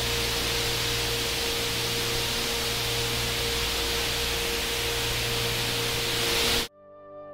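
Star oscillations of a red giant turned into sound: a loud, steady hiss with a few faint steady tones underneath. The heavy hiss marks a massive star. The hiss cuts off suddenly near the end, and soft ambient keyboard music comes in.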